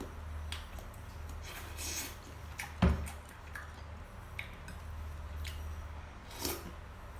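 Close-up eating sounds: scattered soft clicks and wet noises of chewing and cutlery, with one loud knock about three seconds in, over a steady low hum.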